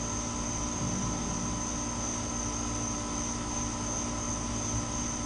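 An outdoor air-conditioning unit next door running with a steady hum, with a constant high-pitched whine above it.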